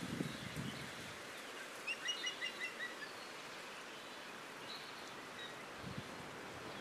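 Osprey calling: a quick series of about six short whistled chirps about two seconds in, typical of a fledgling begging for food, then a fainter call near five seconds. Steady outdoor background hiss underneath.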